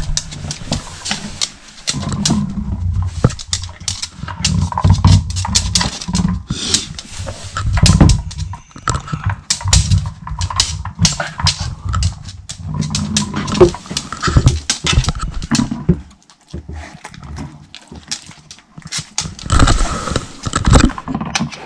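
A dog working at a treat ball to get the treats out, with many irregular clicks and knocks and low rustling thumps, and a quieter pause about three quarters of the way through.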